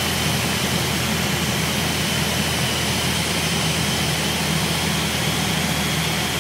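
Engine and propeller of a Piper light plane droning steadily as heard inside the cockpit on final approach to landing, with a thin high whine over the drone.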